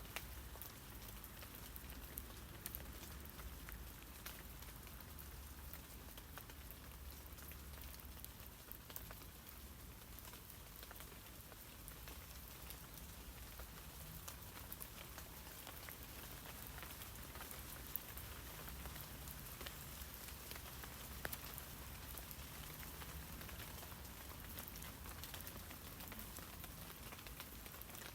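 Steady rain falling on tree leaves: a soft, even hiss of many fine drop ticks on the foliage.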